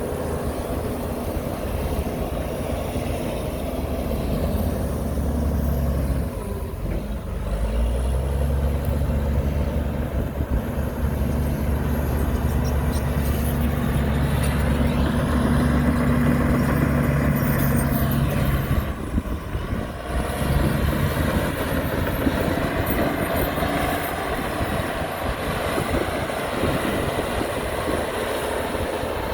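Heavy construction machine's diesel engine running under load. Its note drops briefly about six seconds in and again near twenty seconds.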